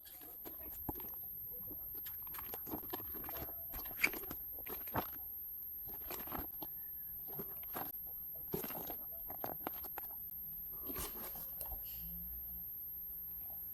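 Plastic model kit box being opened and its contents handled: irregular rustling, scraping and light clicks of cardboard and plastic.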